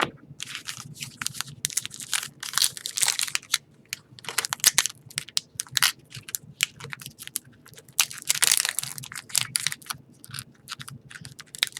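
Hands crinkling and tearing at the foil wrapper of a hockey card pack, in irregular rustling bursts. The pack is hard to get open.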